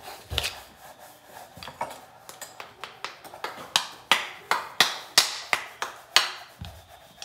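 Sharp wooden clacks from handmade wooden pieces being struck together: a few scattered knocks at first, then a quicker uneven run of about a dozen from the middle to near the end.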